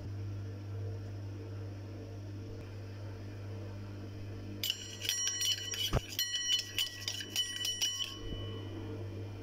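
A metal spoon clinking and scraping in a stainless steel cup of ghee for about three seconds from midway, each touch making the thin steel ring, with one sharper knock. A steady low hum sits underneath.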